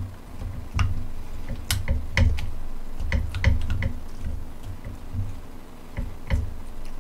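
Wooden spoon and chopsticks clicking and scraping against a metal bowl as food is stirred and scooped, in irregular light clicks over low thuds.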